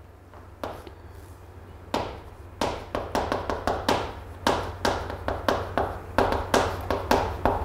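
A run of short sharp taps: a few single knocks at first, then from about two and a half seconds in a quick uneven patter of about three or four a second, like a writing stroke on a board.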